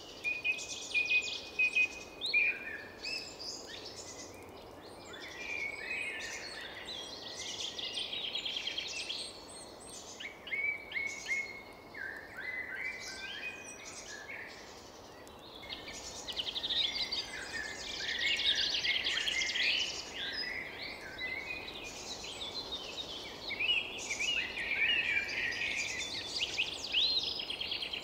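Several birds chirping and singing together in quick, overlapping trills and short whistles, over a faint steady background hiss.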